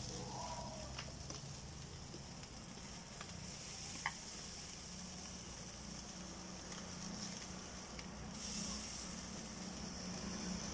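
Pork and venison sizzling over a charcoal grill: a steady hiss that swells louder for a couple of seconds near the end, with one light click about four seconds in.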